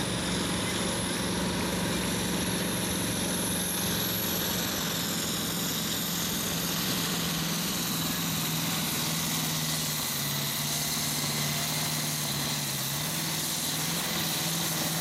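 Massey Ferguson 1155's Perkins V8 diesel running flat out under heavy load while pulling a weight-transfer sled. Its note sags slowly lower as the pull goes on.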